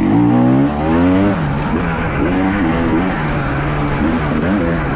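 Two-stroke hard enduro motorcycle engine under hard acceleration, its pitch climbing steeply over about the first second, then rising and falling with the throttle as the rider shifts and rolls on and off.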